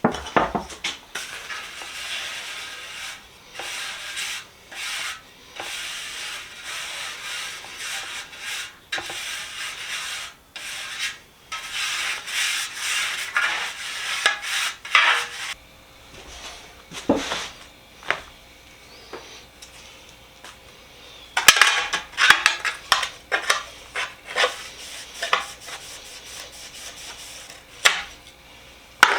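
Hand scrubbing and scraping on the heavy steel socket-set box: a long run of quick rubbing strokes, then a scatter of light metal clicks and scrapes about two-thirds of the way in.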